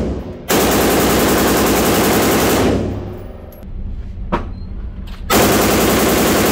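Fully automatic rifle firing long bursts in an indoor shooting range: a burst ending about half a second in, a burst of about two seconds, a single shot a little before the middle, then another long burst from about five seconds in.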